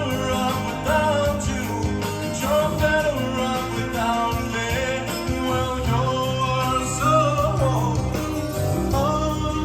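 A rock song with a sung vocal and guitar, played back from cassette tape on a Sony TC-FX707R deck.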